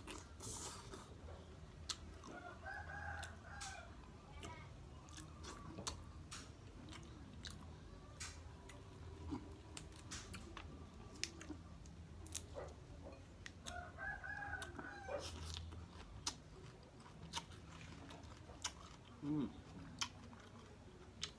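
Close-up mouth sounds of chewing and biting boiled chicken, with wet clicks and crunches throughout. A rooster crows twice in the background, once near the start and once about two-thirds through.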